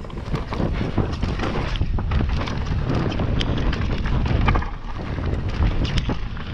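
Mountain bike riding fast down a dirt forest trail: wind buffeting the on-board microphone over the rumble of the tyres, with frequent sharp clicks and rattles from the bike as it goes over bumps.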